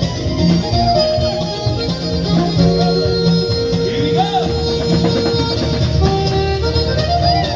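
Instrumental music with fiddle and guitar playing a tune: held melody notes over a steady low accompaniment.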